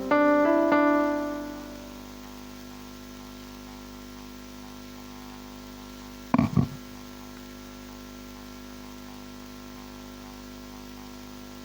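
Keyboard chords struck twice at the start and fading out within about two seconds, leaving a steady electrical hum. About six and a half seconds in, two short thuds break through the hum.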